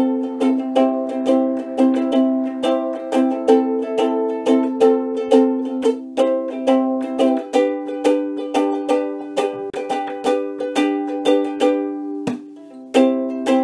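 Ukulele strummed in a steady rhythm, an original tune played as an instrumental with no singing. The chord changes partway through, and the strumming stops briefly near the end before starting again.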